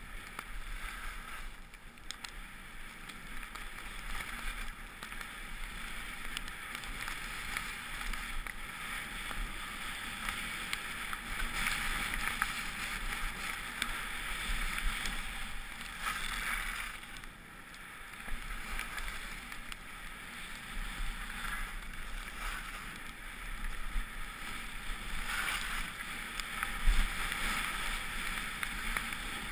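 Skis or a snowboard sliding and carving on packed snow at speed: a continuous hiss and scrape that swells with each turn, over a low wind rumble on the microphone. A single sharp knock near the end.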